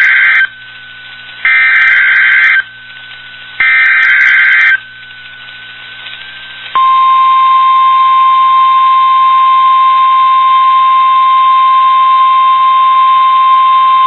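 NOAA Weather Radio required weekly test signal: three SAME digital header bursts, each a harsh data screech about a second long and about two seconds apart. About seven seconds in, the steady single-pitch 1050 Hz warning alarm tone starts and holds.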